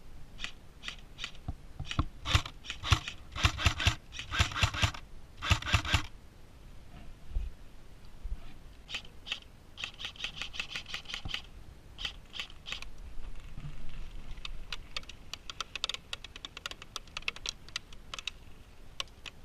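Airsoft guns firing in rapid bursts of sharp clicking shots. The loudest bursts come a couple of seconds in, and more bursts follow in the second half.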